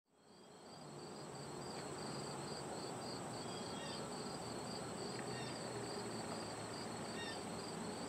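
Faint insects chirping: an even, pulsing chirp a little over twice a second over a steady high whine, fading in over the first second.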